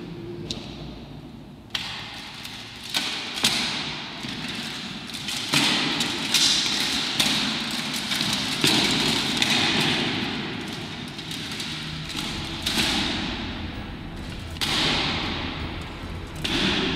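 Repeated knocks and clattering of costume plate armour as actors move through a fight. There are about ten sudden hits, each trailing a long echo.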